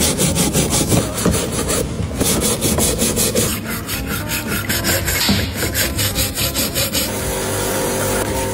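Fast, repeated scrubbing or brushing strokes on a metal part, several strokes a second. About seven seconds in they give way to a steady engine hum.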